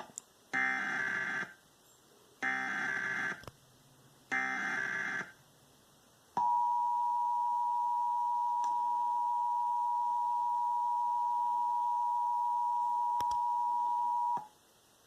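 Emergency Alert System header and attention signal. There are three bursts of SAME digital data tones, each about a second long, then the steady two-tone attention signal (853 and 960 Hz sounded together) held for about eight seconds, cutting off near the end. This is the tone sequence that opens a broadcast EAS required monthly test.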